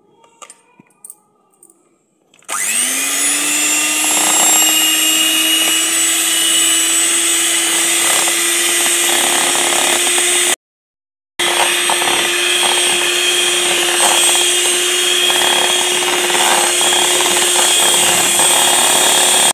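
Electric hand mixer whipping cream. The motor starts about two and a half seconds in, its whine rising briefly as it spins up, then runs steadily. It drops out for under a second around the middle, then resumes.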